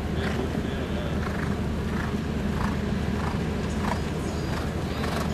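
Horse cantering on sand, with a dull beat about every two-thirds of a second in time with its stride, over a steady low rumble.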